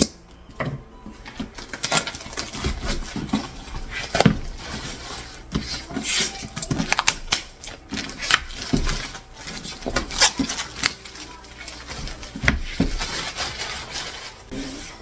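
Blind-box packaging being handled and opened: irregular rustling and crinkling with many sharp clicks and taps.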